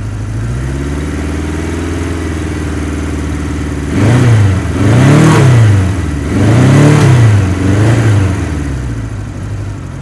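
1973 Kawasaki Z1's air-cooled 903 cc inline-four idling while still cold on choke, then revved in several quick throttle blips from about four seconds in, each rising and falling in pitch, before settling back to idle.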